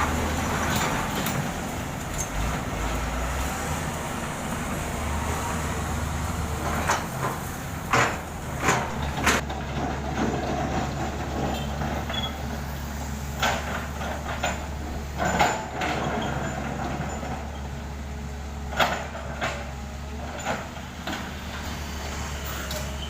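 Heavy diesel construction machinery running steadily, with a series of sharp clanks and knocks, most of them in the middle of the stretch.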